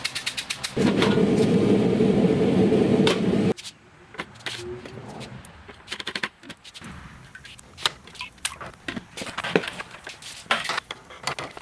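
A power hammer striking in rapid, even blows, about ten a second, then a loud steady rushing noise that cuts off suddenly after a few seconds. Scattered lighter knocks and metal clinks follow.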